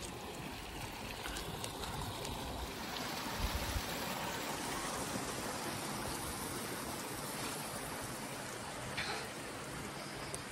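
Water running steadily through a stone-lined channel, an even, continuous flowing sound.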